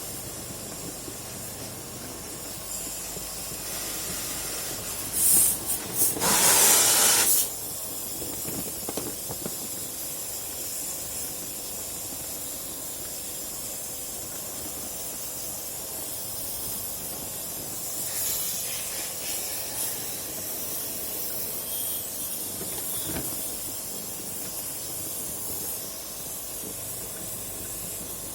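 Steady hiss of a spray jet washing an air-conditioner unit during a service, with a much louder burst of spraying about five to seven seconds in.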